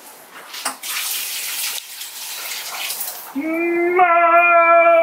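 Diluted nettle manure pouring from a plastic watering can onto the soil around plants, a steady splashing rush. About three seconds in, the pouring gives way to a loud held note at one steady pitch that stops abruptly.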